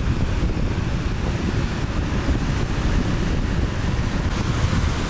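Wind buffeting the microphone with a steady low rumble, over the hiss of surf breaking.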